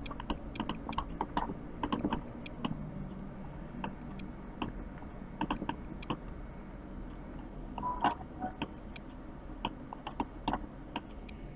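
Irregular clicking of a computer keyboard and mouse, a few clicks each second.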